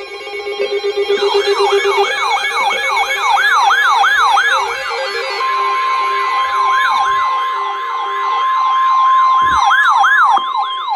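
Alert alarms sounding together. A wailing siren-like sweep rises and falls a little over twice a second, and about five seconds in a steady long tone joins it: the NOAA Weather Radio warning alarm tone that comes before a National Weather Service warning.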